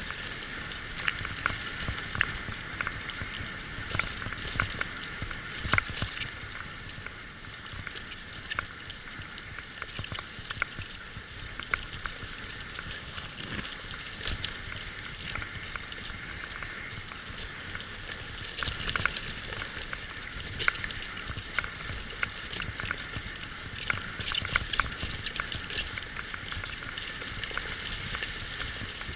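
Wheels of a dog-team rig rolling over a gravel trail at running speed: a steady crunching hiss with frequent small clicks and rattles.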